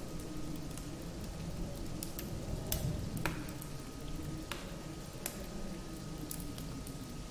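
Quiet background ambience between narrated passages: a steady hiss over a low rumble, with a faint steady hum and about ten scattered sharp crackles.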